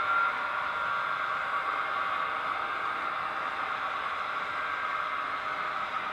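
Sound decoders of HO-scale Broadway Limited Paragon 4 EMD F7 model diesel locomotives playing a steady, hissy diesel engine sound. The sound runs clean, without break-up, now that the lead and trailing units' Rolling Thunder transmitters are set to separate channels.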